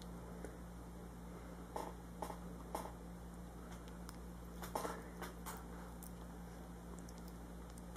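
Quiet room tone with a steady low hum and a handful of faint, short clicks and taps scattered through it.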